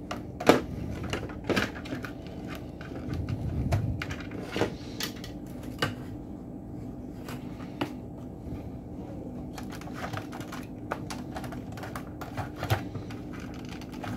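Irregular clicks and taps of hands and a screwdriver on a variable-frequency drive's plastic housing and circuit board as it is taken apart, over a steady low hum. A sharp click about half a second in is the loudest.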